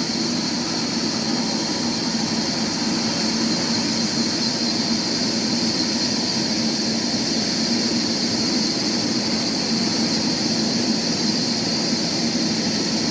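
Sawmill machinery running steadily, a constant drone with a strong high hiss.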